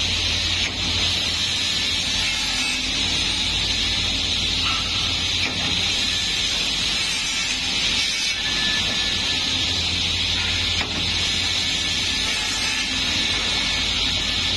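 Automatic corner-cutting wood saw machine running: spinning circular saw blades give a steady high whine over a low motor hum, with a few faint knocks as the tilting saw heads cycle through their cuts.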